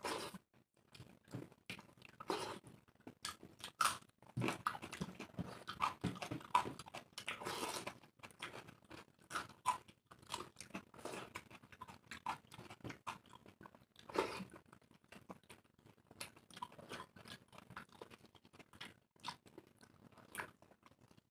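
Two people eating soft dal khichdi with their hands close to the microphone: wet chewing, lip smacking and occasional crunches, in irregular short sounds that come thickest a few seconds in.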